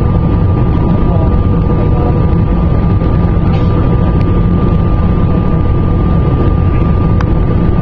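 Airliner cabin noise on approach: a loud, even rumble of engines and airflow, with a thin steady whine above it.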